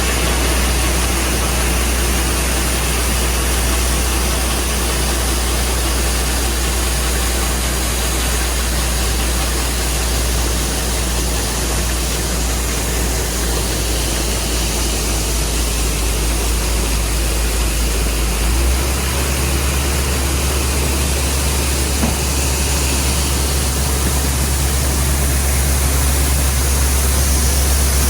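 Large farm diesel engine running steadily at harvest, a continuous low drone with broad machine noise over it. Its low tone shifts in pitch about two-thirds of the way through.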